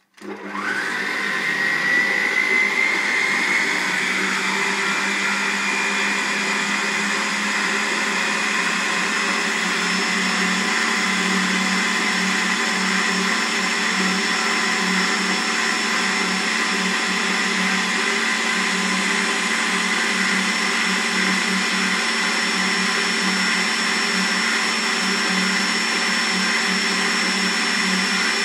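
Kogan stand mixer's electric motor starting up and running, beating butter and sugar. Its whine rises in pitch over the first couple of seconds as it comes up to speed, then holds steady.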